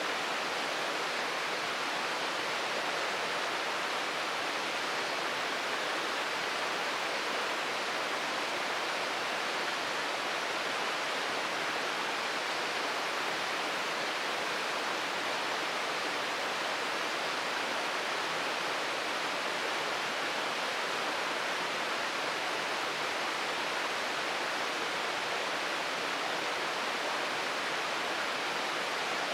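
Waterfall pouring steadily, a constant even rush of falling water with no breaks or changes.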